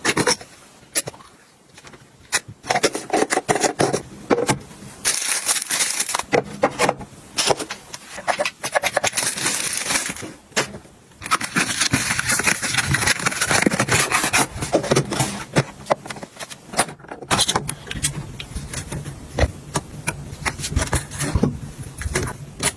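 Objects and packaging being handled and put in place: irregular scraping, rustling and crinkling with many sharp clicks and taps as items are set down.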